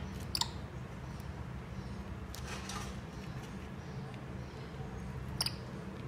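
Peach-faced lovebirds eating from a plastic food tub, giving two short high squeaks, one just after the start that falls in pitch and one near the end, with a softer sound in between, over a steady low hum.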